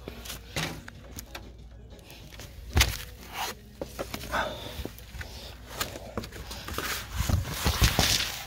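Handling noise from a hand-held camera being carried and moved: scattered knocks, scuffs and rustling, with a sharp knock about three seconds in and a busier stretch of knocks and rubbing near the end.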